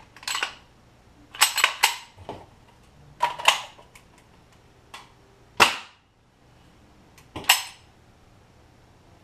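Airsoft rifle being handled and worked: about six separate bursts of sharp mechanical clacks and snaps, a second or two apart, some of them double clicks.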